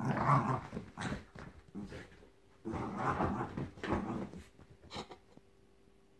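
Jack Russell terrier growling in two rough bouts while thrashing a soft toy teddy, with short weaker growls between them and one near the end.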